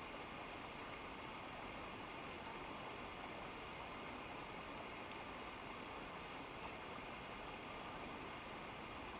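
Steady rushing of a mountain stream, an even unbroken water noise.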